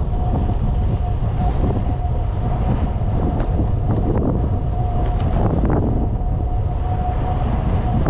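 Wind buffeting the microphone of a camera carried on a moving bicycle: a loud, steady rush, strongest in the low end, with a faint steady hum and a few light rattles.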